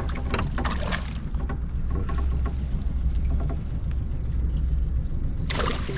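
Boat engine idling with a steady low hum, with a few light knocks early on and a sudden rush of noise near the end.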